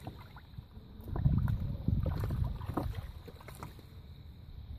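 Landseer puppy splashing and pawing at the water in a small paddling pool, a stretch of sloshing and splashes starting about a second in and lasting about two seconds, then dying down.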